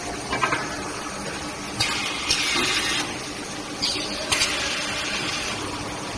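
Roll forging machine running while a red-hot steel billet is worked between its grooved rolls: a steady mechanical hum with several sharp knocks. Two bursts of hissing come, about two seconds in and again a little past four seconds.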